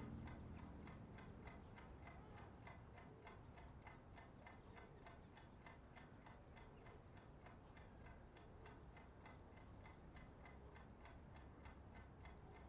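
Clock ticking faintly, with quick, evenly spaced ticks.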